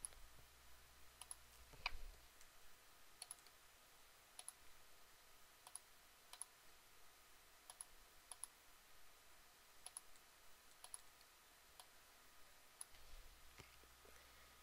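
Faint computer mouse button clicks, scattered irregularly about once a second, some in quick pairs, as ports are selected and dragged between objects in the software.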